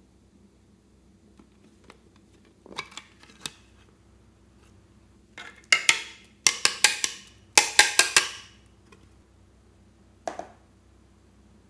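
Hard plastic pineapple-shaped slime tray knocked against the rim of a plastic bowl to shake the slime out: a few light clicks, then two quick runs of loud clacks, and one more tap near the end.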